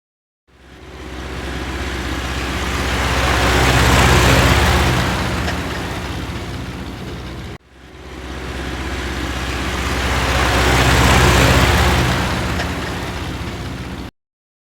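A motor vehicle's engine sound effect: a steady engine hum that swells to a peak and then fades over about seven seconds. It cuts off sharply and the identical sound plays again.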